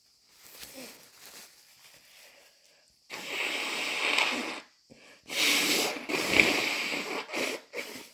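A person blowing a snotty nose: faint sounds first, then a long wet blow starting about three seconds in, followed by several shorter blows.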